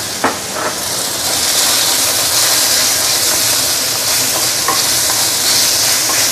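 Marinated pork sizzling steadily in hot oil with fried garlic and shallot in a stainless steel wok, stirred with a wooden spatula. There is a short knock about a quarter second in.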